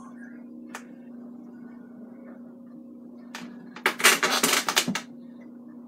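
A paintbrush worked hard against the palette, about a second of rapid, loud, scratchy scrubbing, preceded by two sharp clicks. A steady low hum runs underneath.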